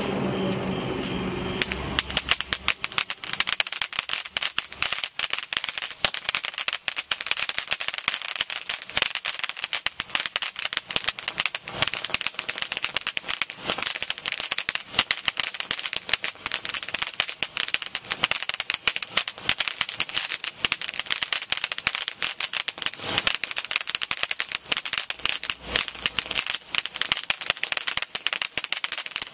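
Mega Fountain ground firework (a flowerpot-style sparkling fountain) spraying sparks with a dense, continuous crackle, which sets in about a second and a half in and keeps going.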